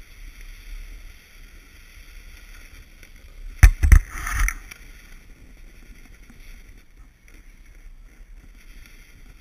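Snowboard sliding over hard-packed groomed snow, a steady scraping hiss. About halfway through comes a short, loud burst of knocks and scraping.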